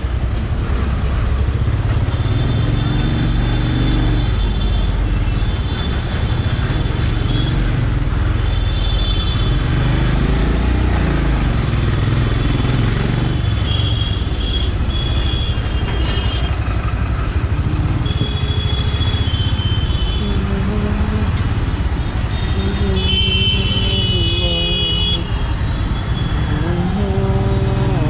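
Royal Enfield Himalayan's single-cylinder engine running at low speed in congested road traffic, with other vehicles' horns tooting again and again over the steady rumble.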